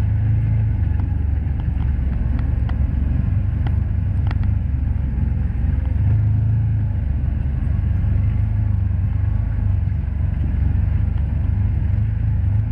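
Can-Am Commander 1000 side-by-side's V-twin engine running steadily while driving a dirt trail, heard from the driver's seat as a low, continuous drone that swells briefly about halfway through, with a few faint clicks.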